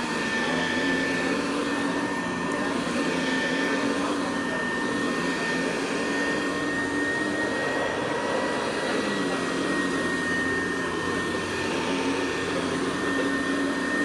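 Hoover Deluxe Model 66 upright vacuum cleaner running steadily, its motor driving a CWP brushroll, with a steady high whine over the motor's hum.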